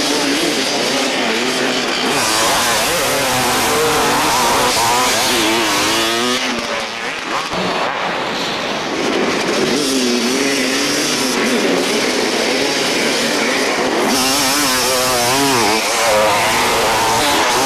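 Many dirt bike engines, two-strokes trailing smoke, revving hard as a pack of riders launches from a race start, then bikes accelerating along a trail. The engine pitch rises and falls constantly, with a brief dip in loudness about seven seconds in.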